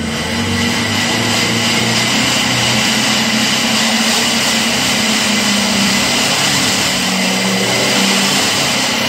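Hyundai Porter 2 truck's diesel engine revved hard and held at high revs, heard at the tailpipe as a loud, steady exhaust rush. It climbs during the first second, then holds level. The rev is the exhaust-smoke check.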